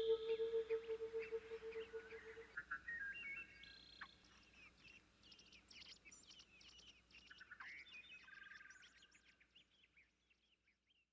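Faint birds chirping and twittering in short quick notes for several seconds, after a held ambient-music tone fades out in the first couple of seconds; the sound then cuts to silence near the end.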